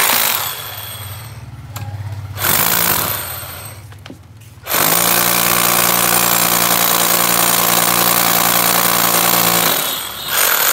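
National 24 V cordless concrete hammer drill boring into a granite block, running in bursts: a short one at the start, another a few seconds in, then a steady run of about five seconds, and a short burst near the end.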